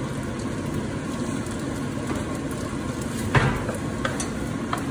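Rice noodles and vegetables sizzling in a wok while a wooden spatula stirs and tosses them. One sharp knock of the spatula against the pan comes about three and a half seconds in, followed by a few lighter clicks.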